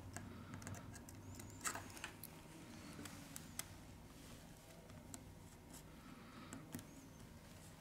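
Faint, scattered small clicks as a gloved finger presses components into place on the opened circuit board of a Sony Xperia M2 smartphone. The loudest click comes about a second and a half in, over a low steady hum.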